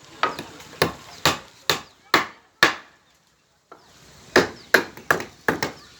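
Hammer striking roof centring (shuttering), about two sharp blows a second, with a short pause about three seconds in before the blows resume.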